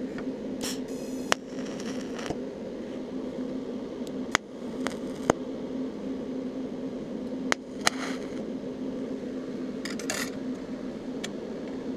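Eastwood TIG 200 welder humming steadily, with a few short hissing tack welds and several sharp clicks as the arc is struck on the steel bolts.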